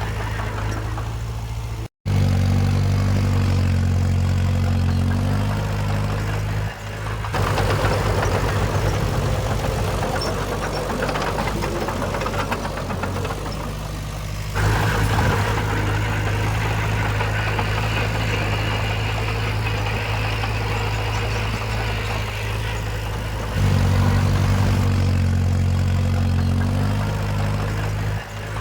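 Heavy diesel engines of earthmoving machines running steadily with a deep hum. The sound changes abruptly a few times, with a momentary dropout about two seconds in.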